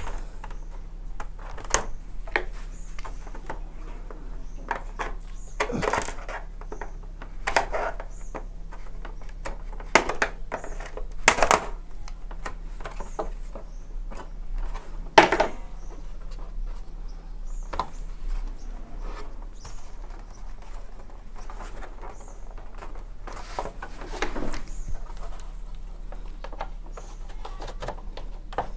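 Irregular clicks, taps and scrapes of a plastic LED TV back cover being eased off by hand around its snap-in clips, with a few louder scraping and creaking spells.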